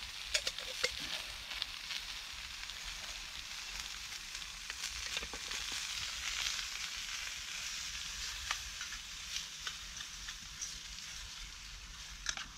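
Sausages sizzling in a frying pan, a steady hiss with scattered short clicks and pops.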